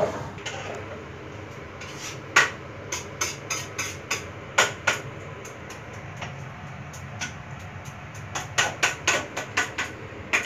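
Wooden pestle pounding in a wooden mortar: irregular sharp knocks, coming in a quick run of about five a second near the end.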